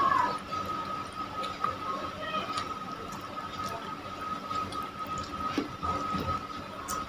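Wet squishing and small sticky ticks as raw fish flesh and skin are pulled apart by hand. A thin steady whine runs underneath.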